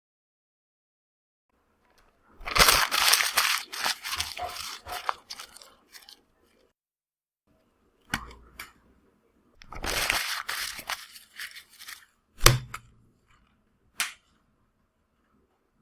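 Sheet of paper being crumpled in the hands: two long spells of crinkling and crackling, with short sharp crackles between and a few near the end.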